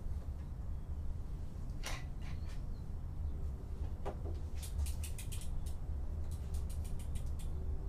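A road bicycle being handled and wheeled: a few single clicks and knocks, then two short runs of rapid, even ticking, about eight a second, from the rear hub's freewheel as the wheel rolls. A steady low rumble lies underneath.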